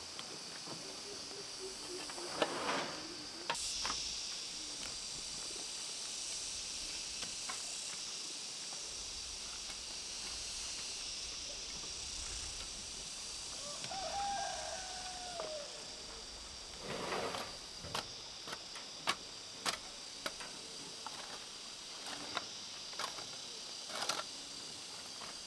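Rural outdoor ambience: a steady high insect drone, a single chicken call that rises and falls about halfway through, and a scatter of light knocks and clicks in the second half.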